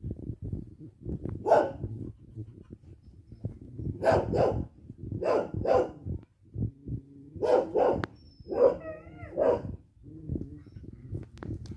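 A dog barking repeatedly, with single and paired barks a second or two apart and a longer wavering call about nine seconds in.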